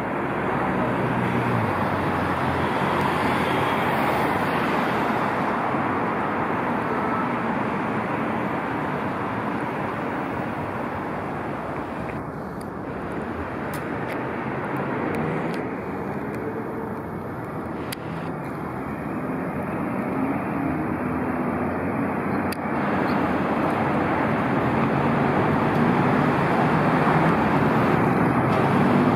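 Steady street traffic: cars and other vehicles passing, the noise swelling and easing as they go by and growing louder near the end.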